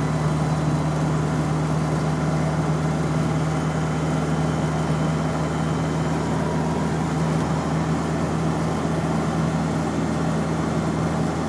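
Land Rover's engine and road noise heard from inside the cab while cruising at steady motorway speed: a constant low drone that does not change.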